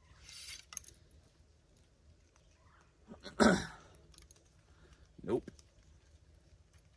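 A compound target bow being shot: a soft hiss and a click in the first second, then the shot as the loudest sound, a short sharp burst about three and a half seconds in.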